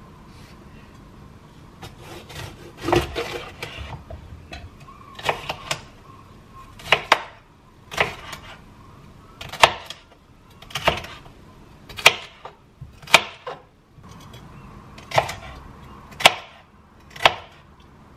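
Chef's knife slicing a bell pepper on a cutting board. The blade knocks on the board about once a second, after a stretch of softer handling of the pepper.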